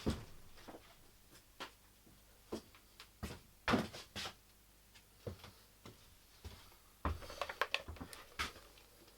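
Knocks and clinks of metal parts being handled and set down: scattered single knocks with pauses between, and a quick flurry of them about seven seconds in.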